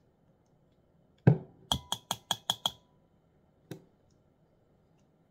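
One knock, then a quick run of six sharp taps at about five a second, with a short ring: an orange plastic measuring spoon knocked against the rim of a glass mixing bowl to shake off oyster sauce. A single tap follows about a second later.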